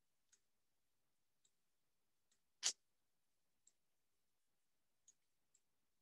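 Near silence broken by a handful of faint, short clicks, with one much louder sharp click about two and a half seconds in.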